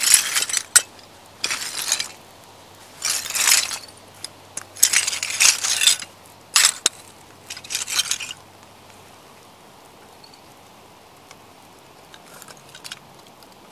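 Work boots stomping on broken vintage ceramic plates: about six bursts of shards crunching, clinking and grinding over the first eight seconds, then a few faint clinks near the end.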